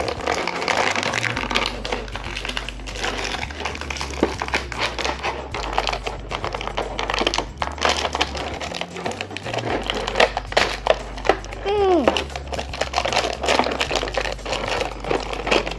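Clear plastic blister packaging crinkling and crackling with many sharp clicks as a small plastic action figure is worked out of it, with one short squeak about twelve seconds in. Background music with a steady bass line plays underneath.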